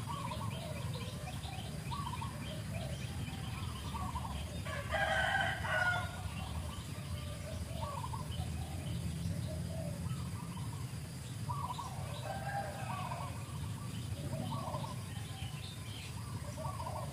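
Birds calling outdoors: scattered short chirps, with one louder, longer call about five seconds in, over a steady low hum.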